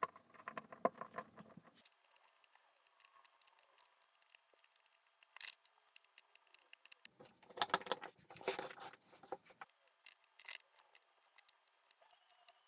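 Hands working at a bench with small parts and tools: scattered light clicks and ticks, with two busier bursts of rattling and scraping, one at the start and a louder one about seven to nine seconds in.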